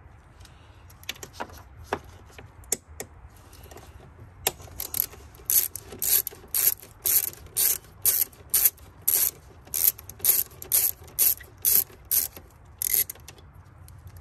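Hand ratchet with a socket clicking as it loosens a 10 mm bolt, first a few scattered clicks, then a steady back-and-forth rhythm of about two strokes a second from about four seconds in.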